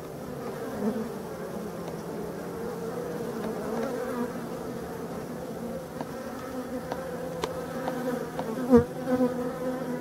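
Black honeybees buzzing at the hive entrance: a steady hum of many bees, with single bees swelling louder as they fly close past about a second in and again near the end.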